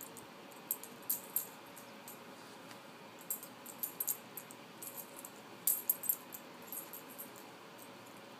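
Metal tag on a Boston terrier's collar jingling in short, irregular clusters as the dog tugs and shakes its head, tearing apart a stuffed plush toy.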